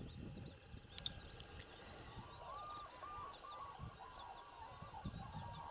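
Wild birds calling: many small birds chirping quickly and high throughout, and from about two seconds in a chorus of repeated mid-pitched calls, with a few soft low knocks of handling.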